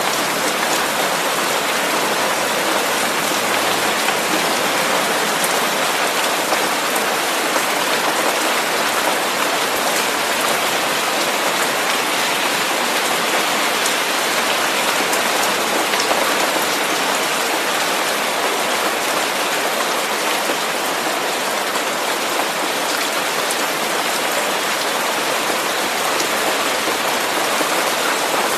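Steady hiss of rain falling, an even wash of noise with a few faint scattered drop ticks, used as a masking sound.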